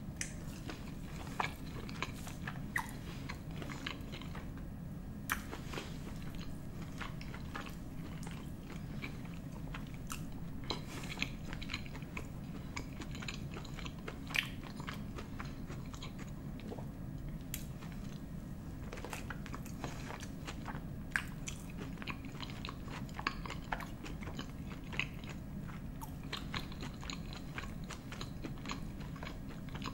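Close-miked chewing of a mouthful of sausage dipped in cheese sauce, with wet smacks and small sharp clicks scattered throughout over a steady low hum.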